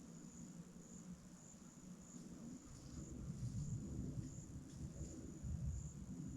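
An insect chirping in a steady rhythm, about two high-pitched pulses a second, over a low, uneven rumble.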